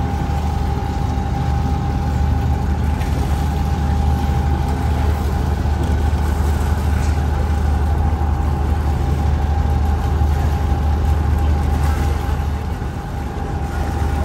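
Engines of a Thames Clipper (Uber Boat) riverboat running steadily: a constant deep drone with a steady higher hum above it.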